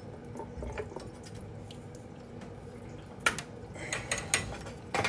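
Leftover water draining and dripping out of a cut copper water line with the supply shut off. A few sharp clicks come about three seconds in and near the end.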